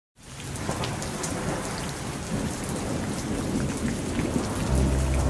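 Steady rain falling, an even hiss with scattered drop ticks, fading in at the start. Near the end a low steady note comes in underneath as the music begins.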